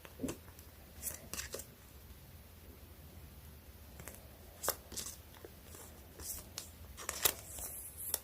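Photocard packing materials being handled: plastic sleeves and wrapping crinkling and rustling in short scattered sounds, with a denser stretch of rustling near the end.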